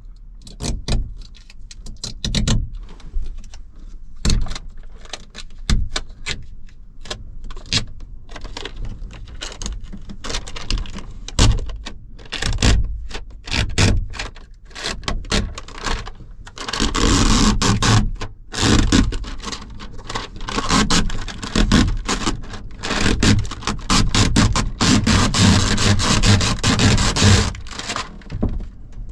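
Tinted plastic film being picked and peeled by hand off the inside of a topper window: scattered crackles and scrapes, then, from a little past halfway to near the end, a continuous crackling rip as the film pulls away from the glass.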